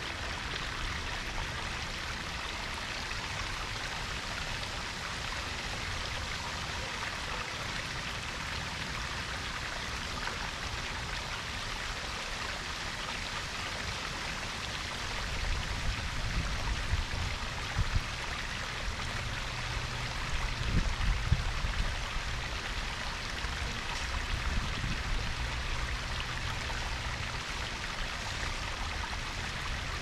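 Koi pond waterfall and babbling brook: water splashing and trickling steadily. A low rumble swells irregularly through the middle and latter part.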